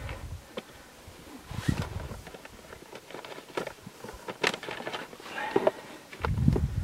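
Rustling of a bag and scattered small clicks and knocks as gear is rummaged out of it, with a couple of low thumps, one about a second and a half in and another near the end.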